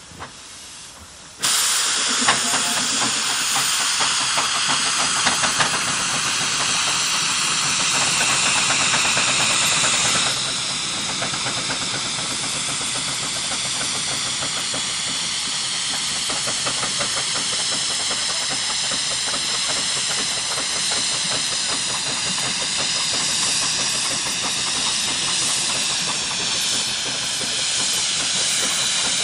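Steam traction engines letting off steam: a loud, steady hiss that starts suddenly about a second in, with quick uneven beats from the working engines running through it. The hiss eases slightly about ten seconds in.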